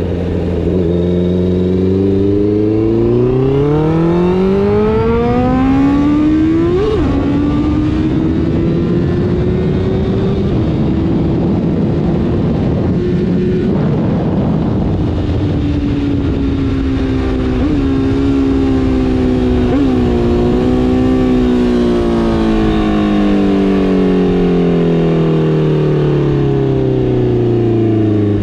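Honda CBR650R inline-four with an aftermarket R9 exhaust, accelerating with the revs climbing steadily for about six seconds, then dropping sharply at a gear change. It holds a fairly steady pitch with a couple of brief blips, then winds down slowly over the last several seconds.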